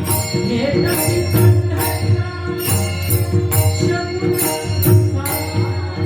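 Marathi devotional kirtan music: a steady beat of small hand cymbals struck about twice a second, with drum strokes and a sustained drone.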